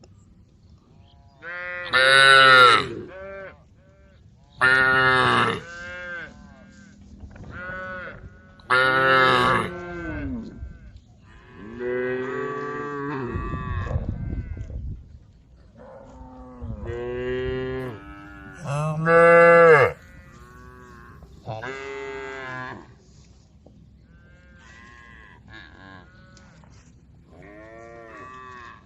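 Cows mooing, a cow calling to its herd: about seven loud calls a few seconds apart in the first twenty seconds, then fainter answering moos of different pitch near the end.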